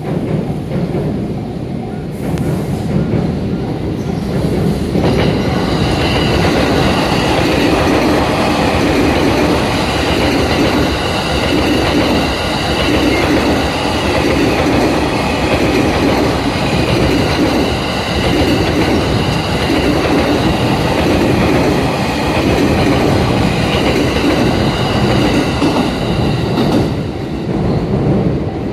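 JR East E231-series electric commuter train passing, its wheels clattering over the rail joints with a high, steady wheel squeal. The train noise swells about five seconds in and falls away near the end.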